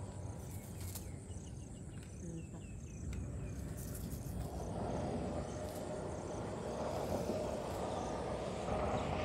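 Outdoor field ambience: a steady low rumble with faint insect chirping, and a broader rushing noise that builds from about halfway through and is loudest near the end.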